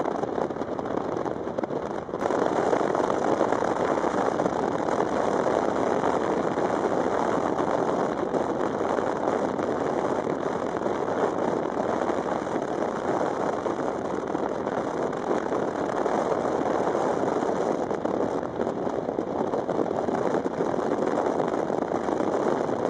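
Steady rush of tyre, wind and engine noise from a car travelling at speed on a sealed road, with a single brief click about two seconds in.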